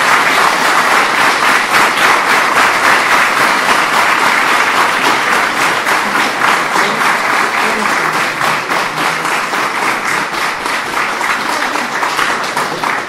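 Theatre audience applauding, a dense steady clapping that thins out toward the end, with separate claps standing out as it fades.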